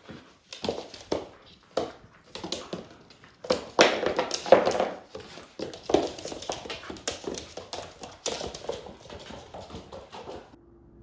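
A German shepherd puppy and a rat terrier play-fighting: a quick irregular run of knocks and scrabbles from paws and claws on a hard floor, with dog noises mixed in, busiest and loudest about four to five seconds in and stopping shortly before the end.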